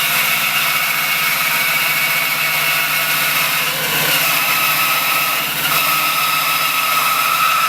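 American Sawmill Machinery band saw, driven by a 3-horsepower three-phase Westinghouse motor, cutting through a 6-inch piece of cherry with a 3/8-inch blade that is not particularly new or sharp. It makes a steady cutting sound with a high, steady tone.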